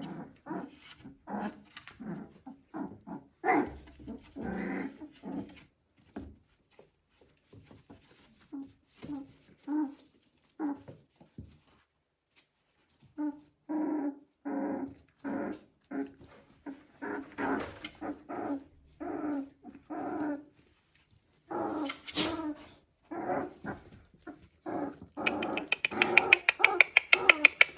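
Three-week-old border collie puppies making short, repeated pitched calls, with pauses and a quiet gap around twelve seconds in. Near the end a louder, fast run of sharp clicks begins.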